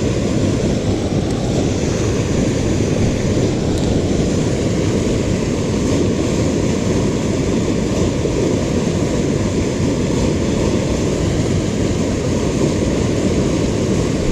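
Steady loud rush of fast-flowing river water, running evenly with no breaks.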